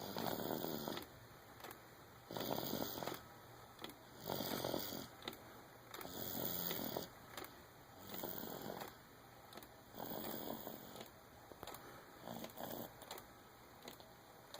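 Snoring in steady sleep: seven rasping snores, each about a second long, coming about every two seconds.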